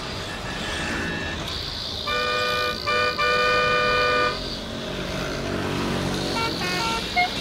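Street traffic with a vehicle horn honking: a short toot and then a longer blast about two seconds in, and a few brief toots near the end.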